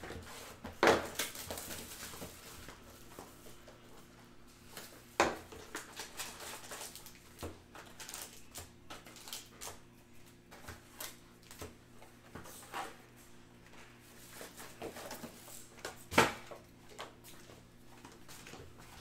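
Hands handling sealed trading-card boxes and packs: irregular rustling and light tapping, with a few sharper knocks about a second in, about five seconds in and near the end, over a faint steady hum.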